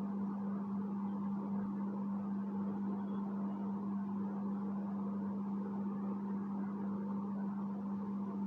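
Steady background hum: a constant low tone over a faint, even hiss, with no change in level.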